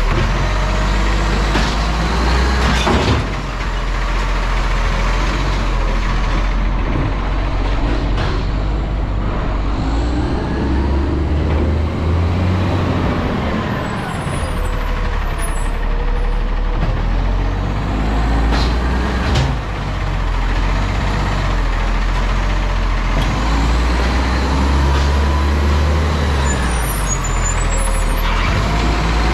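Garbage truck's diesel engine running loud, its pitch rising and falling as it revs, with a few sharp knocks.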